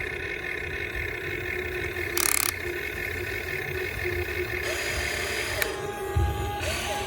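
Huina 1592 radio-controlled excavator's small electric gear motors whining steadily, with gear noise and brief bursts of harsher grinding about two seconds in, around five seconds and near the end.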